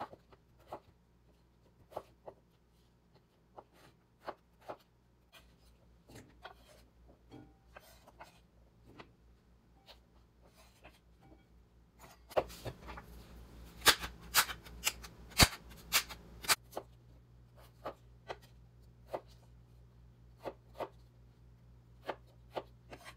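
Chef's knife cutting peeled raw potatoes on a bamboo cutting board: single knocks of the blade on the board, about one a second, with a few seconds of faster, louder knocks and clatter in the middle.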